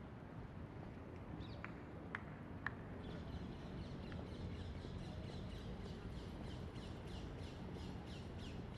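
Birds calling in a park: a few single high notes, then from about three seconds in a quick run of short high chirps, each sliding down in pitch, about three a second, over a steady low background rumble.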